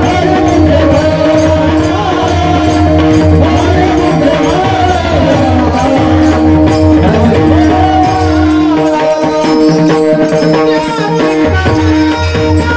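Devotional Marathi bhajan music: a wordless sung alaap wavering and gliding over a steady held drone, with drum and jingling percussion strokes keeping time. The low bass drone drops out for a few seconds past the middle, then returns.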